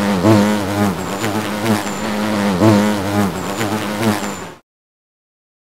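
Buzzing of bees, a loud low hum whose pitch keeps wavering up and down, cutting off abruptly about four and a half seconds in.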